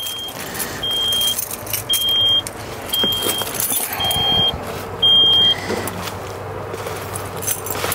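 Excavator cab warning buzzer beeping with the key switched on: six high, even beeps about a second apart, each about half a second long, stopping about five and a half seconds in. Keys jingle and clatter underneath as they are handled.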